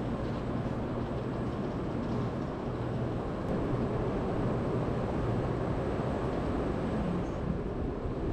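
Steady hum and rumble of a station platform beside a standing N700S Shinkansen bullet train, growing a little louder about three and a half seconds in.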